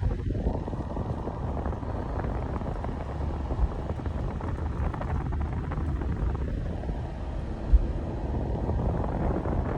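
Steady low rumbling noise, like a vehicle or wind on the microphone, with a light knock about a third of the way in and a sharper one later.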